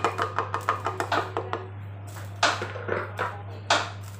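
A wooden spatula and a plastic turner clicking and knocking against a pan as rice noodles and vegetables are tossed. First comes a quick run of light taps, each with a short ring, then a few louder knocks, with one sharp knock near the end. A steady low hum runs underneath.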